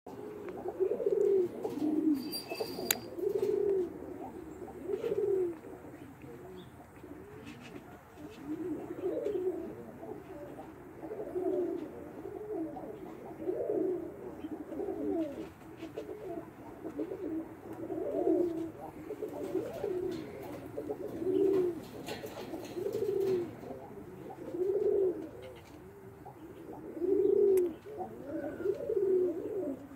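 Domestic roller pigeon cooing over and over, low warbling coos that swell and fall about every one to two seconds, with a short lull partway through.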